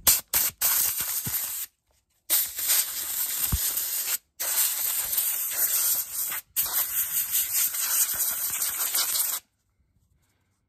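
Compressed-air blow gun hissing as it blasts dust out of a dirty pleated paper lawnmower air filter, starting with a few quick bursts and then several long blasts with short breaks between them, stopping about nine and a half seconds in.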